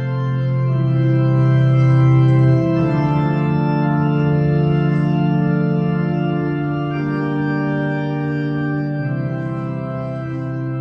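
Organ music playing slow, sustained chords that change every few seconds.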